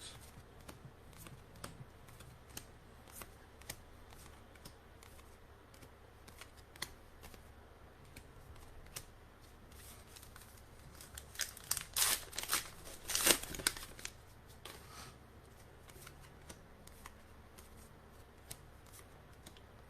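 Trading cards being handled and slid through the hands: faint scattered flicks and rustles, with a short run of louder rustling about twelve to fourteen seconds in.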